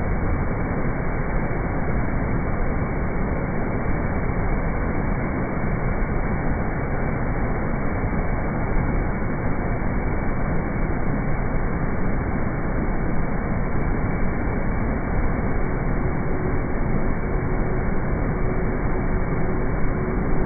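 Heavy floodwater rushing steadily through the open gates of the Krishna barrage: a loud, unbroken rush of churning water.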